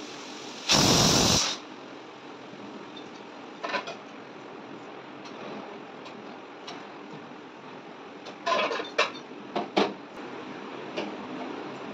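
Cooking sounds at a wok on a gas stove: a brief loud rush of noise about a second in, then a spatula clinking against the steel wok, with a quick cluster of sharp metal clinks near the end, over a steady background hiss.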